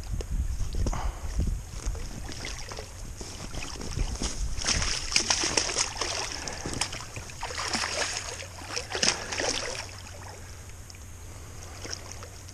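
Water splashing and sloshing in irregular bursts, busiest in the middle, with wind rumbling on the microphone near the start.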